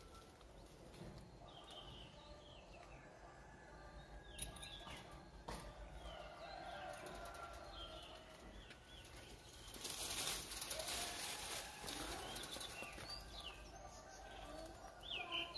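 Birds chirping faintly and repeatedly in the background, with a rustling of leaves and branches that grows louder about ten seconds in as monkeys clamber through a bush.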